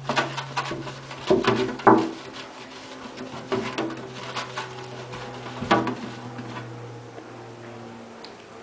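A scourer scrubbing the inside of a plastic mouse cage, with irregular scraping strokes and sharp clunks and knocks as the cage is handled. A low steady hum runs underneath.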